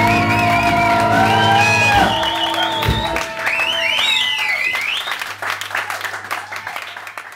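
A live band of keyboard, electric guitars and drums holds its final chord, which ends about two to three seconds in. The audience then applauds and cheers with high whistles, and the sound fades out near the end.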